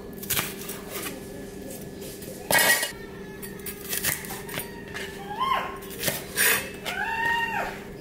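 Wide-bladed kitchen knife chopping a green bell pepper on a plastic cutting board: irregular sharp knocks, the loudest a quick cluster about two and a half seconds in. In the second half a few short high-pitched calls rise and fall over the chopping.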